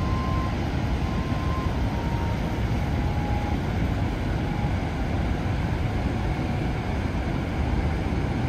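Steady, deep rushing of Niagara's Horseshoe Falls: a huge volume of water plunging over the brink, heard close up.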